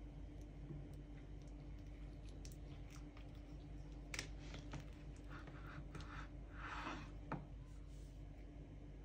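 Kitchen knife cutting through a soft cream cake and tapping the wooden cutting board: a sharp knock about four seconds in, a soft scraping as the blade draws through, and a second knock about seven seconds in, all faint over a low steady hum.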